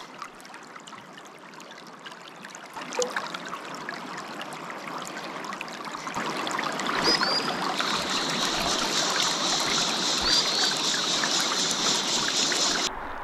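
Fast-flowing river water rushing steadily, growing louder about halfway through, with two brief high chirps over it.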